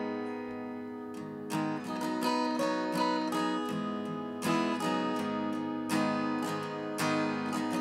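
Acoustic guitar strummed: an opening chord rings out, then steady rhythmic strumming begins about a second and a half in.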